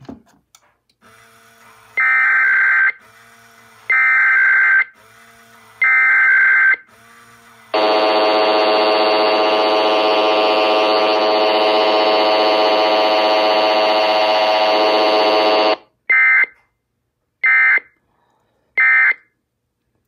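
SAGE 1822 EAS ENDEC sending an Emergency Alert System alert: three one-second warbling SAME header data bursts, then an eight-second attention tone that sounds harsh and distorted because the audio levels are set too high, then three short end-of-message data bursts.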